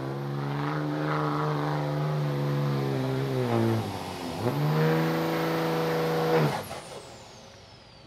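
A pulling truck's engine running hard at high, steady revs; its pitch sags about four seconds in and climbs back. The engine is then cut off abruptly, leaving a high whine that falls away.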